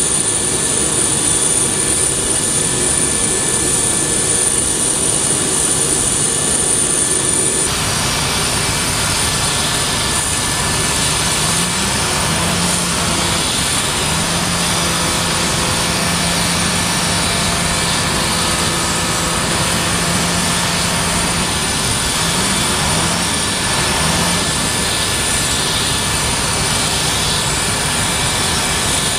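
Steady jet aircraft noise on an airport apron, with a thin, high whine held over it. The sound changes suddenly about eight seconds in. A lower engine drone comes in for about ten seconds in the middle stretch.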